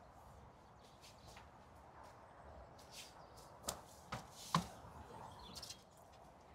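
A few light clicks and knocks over a quiet background, the loudest about four and a half seconds in: a flimsy plastic module tray of seedlings being handled and lifted.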